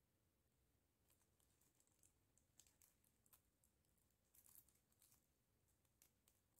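Very faint, scattered clicks and crinkles of plastic-bag yarn being worked with a metal crochet hook, starting about a second in.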